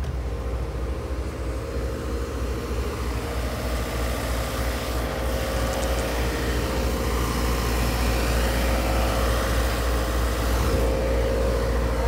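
A motor vehicle running steadily with a deep, constant low rumble and a faint steady hum, slowly growing a little louder.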